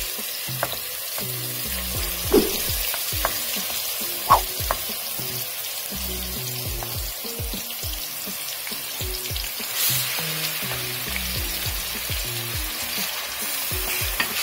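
Grated onion sizzling as it hits hot cooking oil in a pot, starting suddenly and going on steadily as it is stirred with a wooden spoon, with a few sharp knocks along the way.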